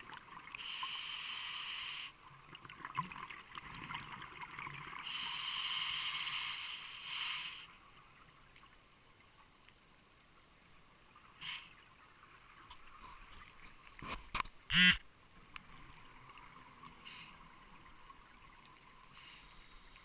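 Scuba regulator breathing heard underwater: two long bursts of exhaled bubbles in the first eight seconds. After that the water is quieter, with a few clicks and one short loud gurgle about fifteen seconds in.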